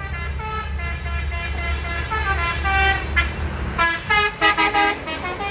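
Low rumble of a heavily loaded Hino tractor-trailer's diesel engine labouring on a steep climb. It is losing power under a load of about 60 tons, 'out of breath', and the rumble drops away a little after three seconds. Several short vehicle-horn toots sound over it, loudest near the end.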